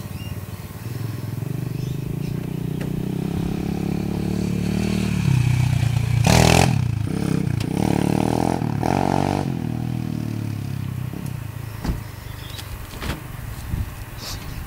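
140cc Thumpstar pit bike's single-cylinder four-stroke engine revving up as the bike rides closer, loudest as it passes about six seconds in, then dropping in pitch and fading as it rides away. A few short knocks near the end.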